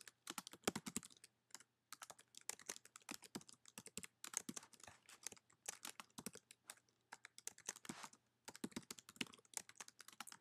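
Faint, fast typing on a computer keyboard: an irregular run of key clicks, pausing briefly about two seconds in and again near eight seconds.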